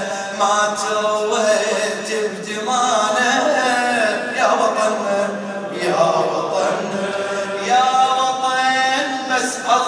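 A man chanting an Arabic elegy into a microphone, his voice amplified through the hall's loudspeakers, in long held melodic lines that rise and fall.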